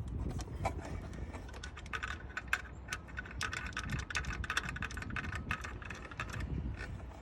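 Irregular metallic clicks and clinks of a hand tool on a bolt as the alternator's mounting bolt is worked loose, busiest in the middle.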